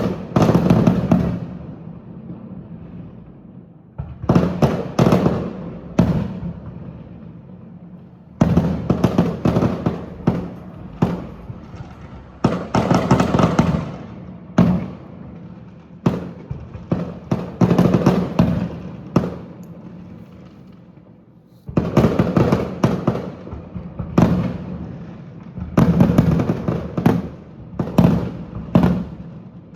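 Fireworks display: aerial shells bursting in rapid clusters of sharp bangs, each followed by an echoing rumble. The salvos are broken by three brief lulls, at about 2, 7 and 20 seconds in.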